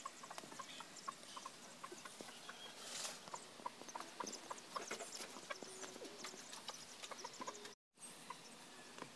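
Faint background of scattered small clicks and short high chirps over a low hiss. The sound cuts out completely for a moment about eight seconds in.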